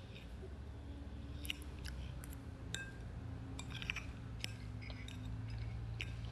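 Light, scattered clicks and small scrapes of small objects being handled, including a pen or pencil, over a low steady hum.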